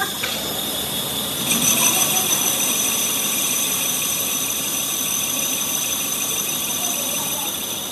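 Metal lathe cutting an engine cylinder sleeve: a steady high-pitched squeal from the tool in the cut over the machine's running noise, growing louder about one and a half seconds in.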